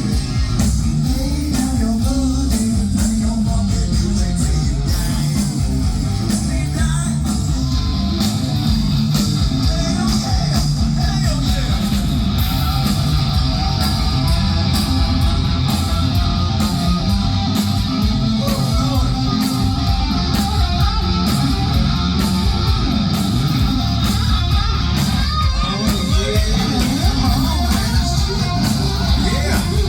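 Live rock band playing a guitar-driven song with singing, loud and steady throughout.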